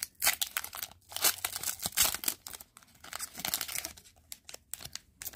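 A hockey trading card pack's wrapper being torn open and crinkled in the hands, in uneven rustling spells with short pauses between.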